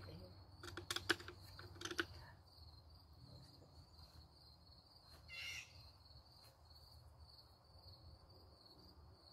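Insects trilling steadily and faintly in a high pitch. A few light clicks or taps come in the first two seconds, and a short scratchy sound about five seconds in.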